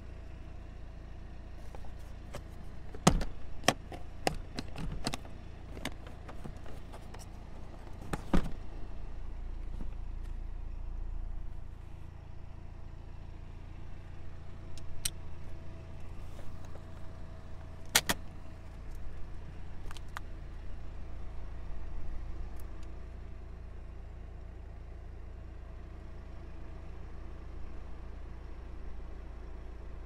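Sharp clicks and knocks of a car seat's switches, levers and trim being handled: a cluster of clicks a few seconds in, more around eight seconds, and a few single clicks later. A steady low rumble runs underneath.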